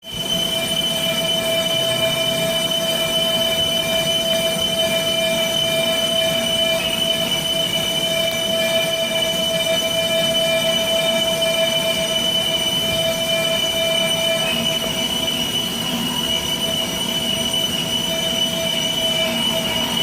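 CNC vertical lathe cutting metal, with a steady high-pitched squeal of the tool against the workpiece over the machine's running noise. The tones shift a little about two-thirds of the way through.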